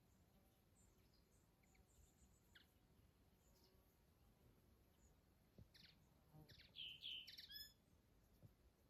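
Faint birdsong: scattered short high chirps, with a brief run of louder chirps near the end.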